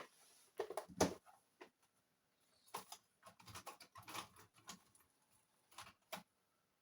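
Scattered light clicks and taps of a screwdriver and small tools being picked up and handled, with a short cluster of them in the middle.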